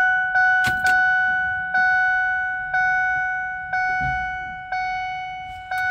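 2003 Ford F-150's dashboard warning chime ringing over and over, a steady bell-like ding struck about twice a second, then slowing to about once a second from about two seconds in. A couple of sharp clicks less than a second in.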